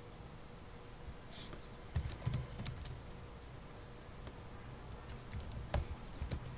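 Computer keyboard typing: a few short runs of keystrokes with pauses between them.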